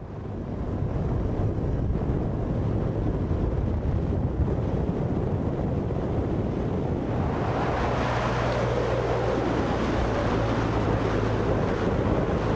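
Steady motor-vehicle engine drone with wind rumble on the microphone. It fades in at the start and grows louder from about seven seconds in.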